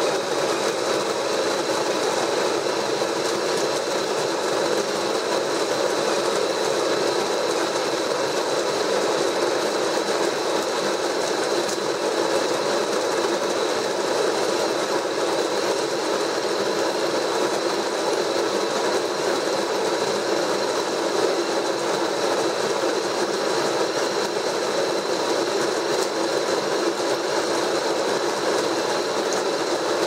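Built-in conical burr grinder of a Capresso CoffeeTEAM GS coffee maker grinding whole coffee beans on its coarse setting: a steady mechanical grinding noise with a thin high whine running through it.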